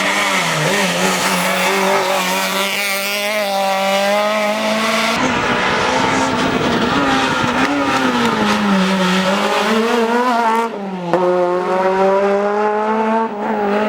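Rally car engines at full competition speed, the pitch climbing and dropping again and again as the drivers rev up and shift through the gears. The sound changes abruptly about five and eleven seconds in, moving from one car or moment to another.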